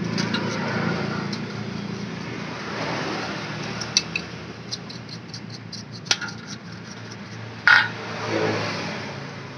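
A paintbrush scrubbing a scooter's centrifugal clutch shoe carrier plate over a metal basin, with light scratching and many small metallic ticks. A few sharper clinks of metal on metal come through, the loudest a short clank about three-quarters of the way in. A low hum of engine or traffic noise runs underneath.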